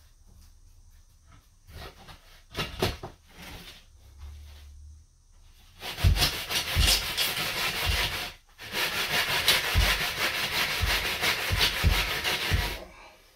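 Long aluminium level scraped back and forth over a sand-and-cement shower mortar bed, screeding it to slope toward the drain. A few light scrapes come first, then about halfway in a continuous run of quick scraping strokes with a few dull knocks, which stops just before the end.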